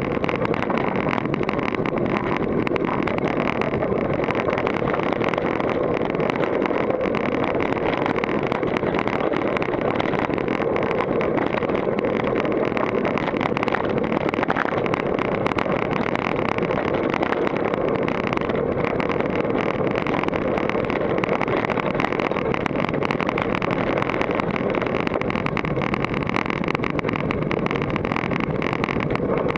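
Steady rush of wind and trail noise on a helmet-mounted action camera during a fast downhill mountain-bike descent, with constant small rattles and knocks from the GT Force Carbon bike as it rolls over rocky dirt.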